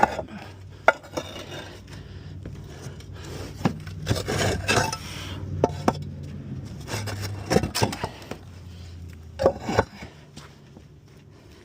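Roof tiles and valley debris being handled: irregular hard knocks and clinks with scraping and rubbing. There is a cluster of knocks about halfway through and another shortly before the end.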